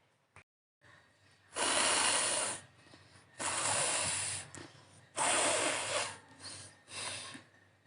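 A person blowing their nose hard: three forceful blows of about a second each, then two shorter ones near the end.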